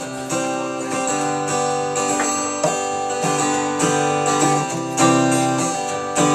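Acoustic guitar strumming steady chords, the instrumental intro to a slow song.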